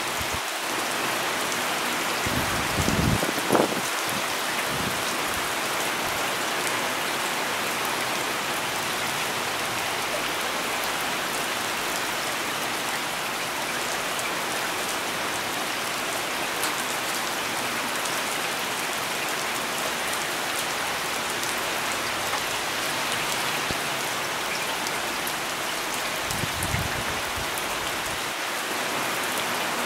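Heavy rain falling steadily, a dense even hiss of drops. Brief low rumbles break in about three seconds in, with a short louder bump just after, and again near the end.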